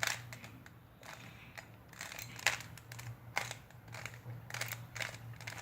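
Rubik's cube faces being turned by hand: a run of irregular plastic clicks and clacks as the layers snap round.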